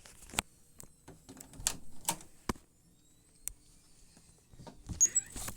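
A scattering of sharp clicks and knocks at an irregular pace, the loudest cluster coming near the end.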